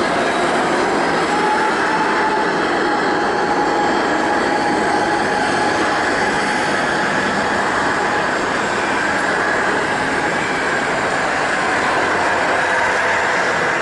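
Airbus A330-300's Rolls-Royce Trent 700 jet engines heard after landing: a steady, loud engine rush with a faint whine held at one pitch.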